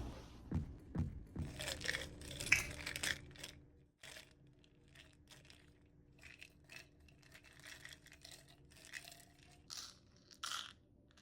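Foley handling sounds: a run of small rustles, clicks, clinks and scrapes of objects being handled, busy for the first few seconds and then sparse and quieter, with two sharper clinks near the end.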